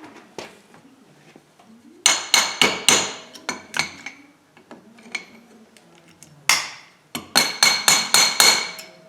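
Two runs of quick, sharp metal-on-metal strikes with a ringing tone, each a handful of rapid hits: metal tools knocking on the internal parts of an air impact wrench while a stubborn retaining ring is worked out during teardown.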